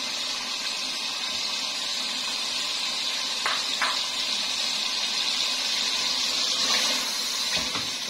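Chicken korma simmering and sizzling in a steel pot over a gas flame: a steady hiss. There are two light knocks about three and a half seconds in, and a wooden spoon starts stirring near the end.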